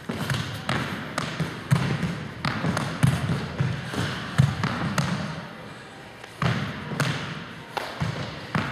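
People doing squat tuck jumps, their feet landing on a wooden sports-hall floor about twice a second. Each landing rings briefly in the hall, and the landings pause for about a second just after the middle.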